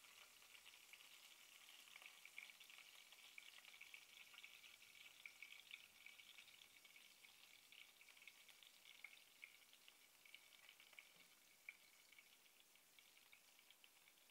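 Chopped green chillies frying in hot oil in a nonstick wok: a faint, dense crackling sizzle that eases a little toward the end.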